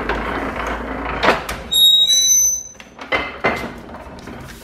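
Paper guillotine cutting through a stacked paperback block. The machine runs with a low hum, then a sharp knock, then a loud high-pitched squeal of the blade for about a second. A few knocks follow as the trimmed strips are pulled out.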